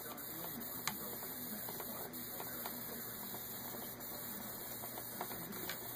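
Thin stream of water from a bathroom faucet running into a sink, a steady hiss, with faint scattered clicks of a cat lapping at the stream and one sharper click about a second in.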